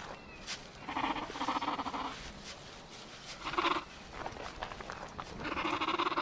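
Calls of computer-animated theropod dinosaurs from a sound effect: three rough, drawn-out calls. The first comes about a second in and lasts about a second, a short one follows about three and a half seconds in, and a longer one starts near the end.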